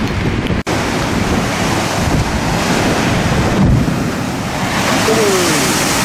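Big waves breaking in a stormy sea, with strong wind rumbling on the microphone. The sound drops out for an instant about half a second in.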